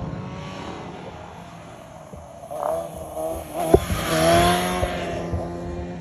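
Sport motorcycle engine revving as the bike wheelies past close by, rising in pitch and loudest about four seconds in, then fading. A single sharp pop comes just before the loudest point.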